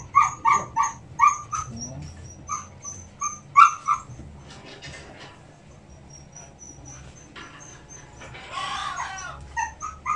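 A dog barking in a rapid series of short, high yips, about three a second, then breaking off and starting again near the end.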